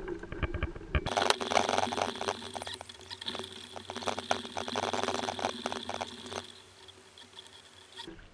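Fast-forwarded audio from a fishing kayak on open water: water and handling noises sped up into a rapid, high-pitched jumble of clicks and splashes. It starts abruptly about a second in and cuts off abruptly near the end.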